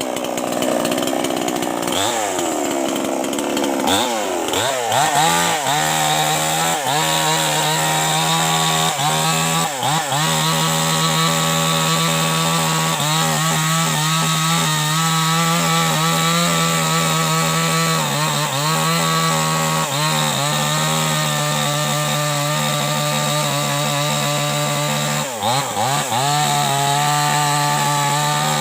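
Maestro 6500L two-stroke petrol chainsaw cutting acacia wood. Its revs climb over the first few seconds, then hold high and steady, with brief dips about ten seconds in and a few seconds before the end.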